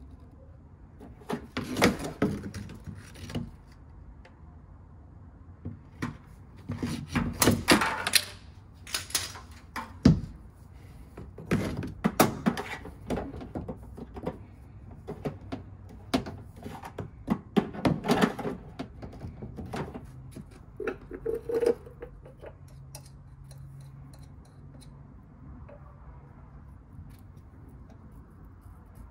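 Plastic drain pipe and fittings being handled and pushed into place: irregular knocks, clicks and scraping, busiest through the first two-thirds. A faint low hum follows, after the handling eases off.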